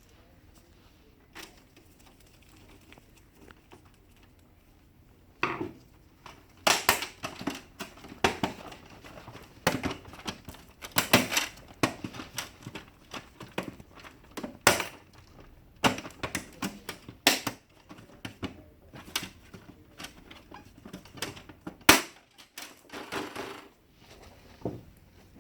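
Plastic housing covers of an HP LaserJet printer being fitted and snapped into place: a run of irregular sharp clicks and knocks that starts about five seconds in, with one louder snap near the end.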